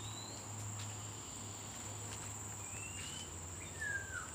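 Steady high-pitched drone of insects, with a few short whistled bird notes that rise in pitch and one louder falling whistle near the end.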